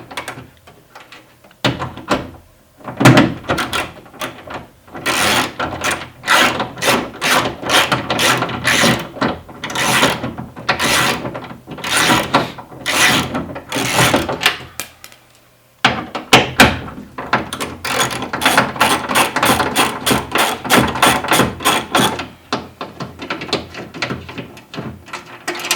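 Hand ratchet clicking as it backs out the two screws that hold the door's window rail, in two long runs of quick, sharp clicks with a short pause between them about halfway through.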